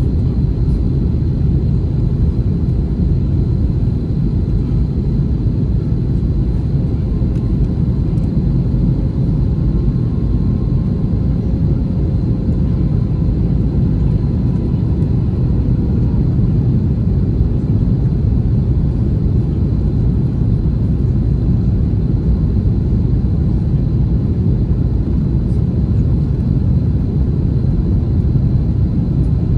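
Airbus A321 cabin noise on descent toward landing: a steady, loud rumble of airflow and engines, with a faint steady high whine above it.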